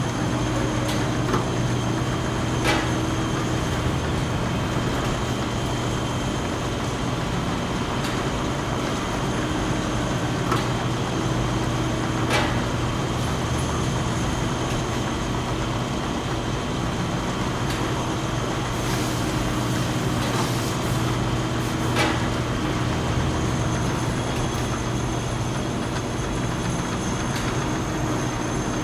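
Steady hum of running industrial machinery, with a few sharp metallic knocks at irregular intervals.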